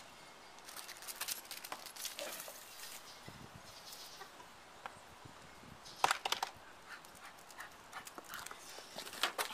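A dog moving about, its steps giving scattered clicks and taps that bunch up about a second in, about six seconds in and near the end.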